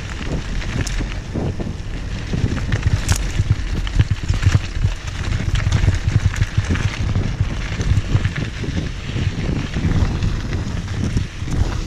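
Mountain bike descending a stony dirt trail at speed: wind buffeting the action camera's microphone over the rumble of tyres on loose gravel, with the bike rattling and clicking over rocks.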